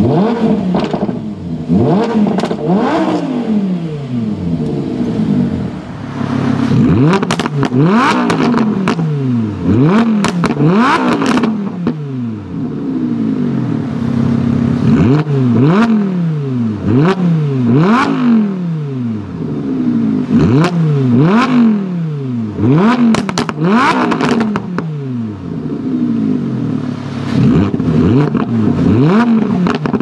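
2015 Lamborghini Huracán LP610-4's 5.2-litre V10 being revved while parked in Sport mode: quick blips whose pitch shoots up and falls back, one after another about every second, with a short spell of steady idle about halfway through.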